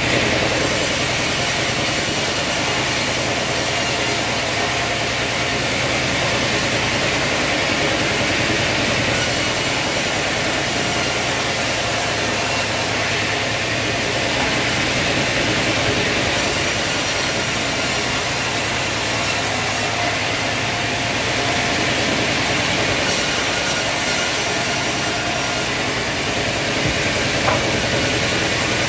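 Large stationary vertical band saw running and cutting through a log as it is pushed along the table, a loud steady sawing noise.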